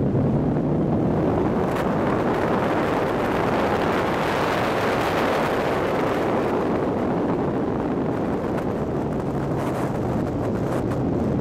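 Nissan S13 Silvia's engine running hard on a sprint lap, heard onboard with heavy wind noise. The sound builds to a peak about halfway through, then eases back as the car slows into a corner.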